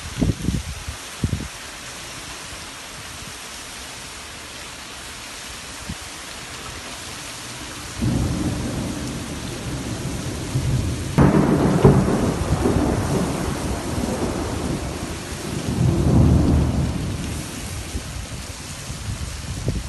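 Steady rain hiss, with a few short low thumps at the very start; about eight seconds in, thunder begins to rumble, breaks into a louder clap a few seconds later and swells again near the end.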